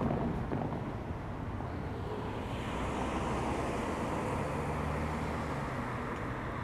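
Outdoor rumble with wind buffeting the microphone. A steady low engine hum comes in about four seconds in.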